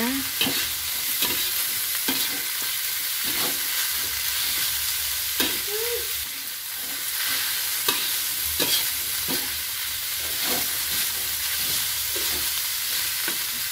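Shredded tongkol fish with chillies and shallots sizzling steadily in a wok while a steel spatula stirs it, scraping and knocking on the pan every second or so. It is being fried until fragrant, before water goes in.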